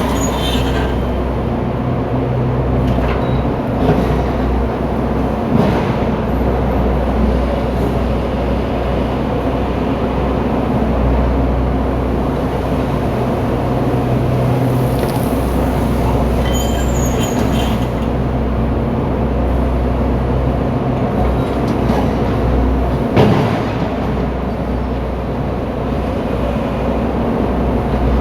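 Heavy machinery's diesel engine running steadily at a constant speed, with a few short metallic knocks, the loudest about 23 seconds in.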